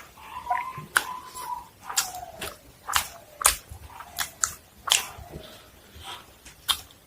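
Close-up mukbang eating: a person biting and chewing crunchy food, with crisp crunches about two a second.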